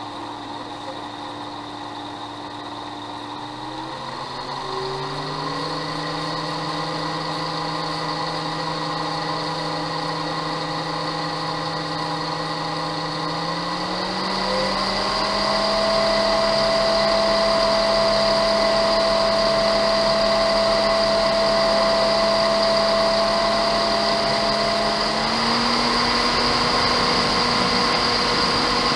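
Ford Focus electric radiator cooling fans running under PWM control, stepped up in duty cycle from 25% to 95%. The motor and blade whine jumps up in pitch in several distinct steps, a few seconds in, about halfway and near the end, and grows louder as the fans speed up.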